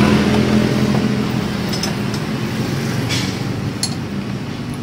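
A motor vehicle engine running nearby, a steady low hum that fades after the first second or two. A few light metallic clicks of a hand wrench on a motorcycle's front axle nut come through over it.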